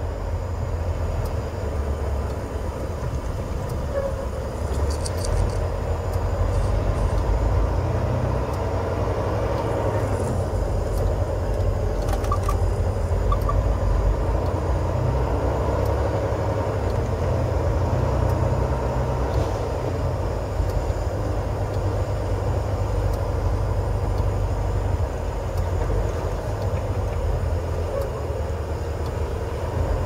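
Semi truck heard from inside its cab while driving: a steady low engine and road drone that holds level throughout.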